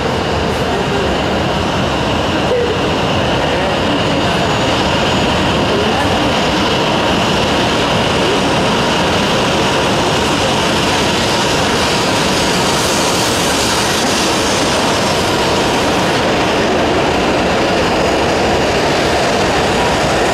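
E7/W7-series Shinkansen train pulling out along a station platform, its cars running past with a steady, unbroken noise of wheels and motors.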